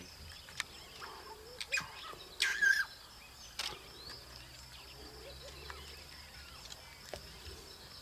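African bush ambience: a steady high insect trill, with scattered short bird chirps and clicks and one louder call about two and a half seconds in.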